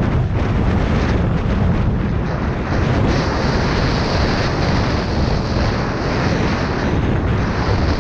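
Wind buffeting a GoPro's microphone as a skier runs fast down a groomed piste: a steady, loud rumble, with the skis hissing and scraping over hard-packed snow.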